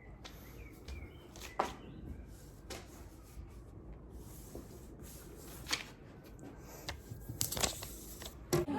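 A few scattered sharp clicks and taps over a steady low rumble of background noise, like objects or fabric being handled close to the microphone.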